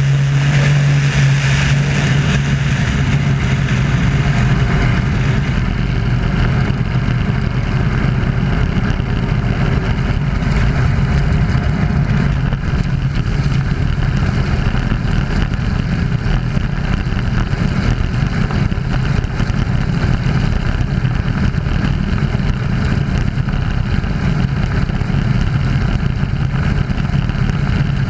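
Wolf Pitts Pro aerobatic biplane's piston engine and propeller running hard in flight, heard from outside the aircraft with steady wind rush. The deep engine note eases through the middle and comes up strongly again near the end.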